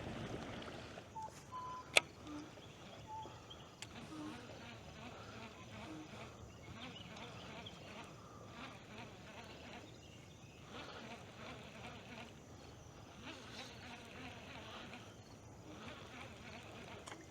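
Faint insect buzzing that swells and fades, with a single sharp click about two seconds in.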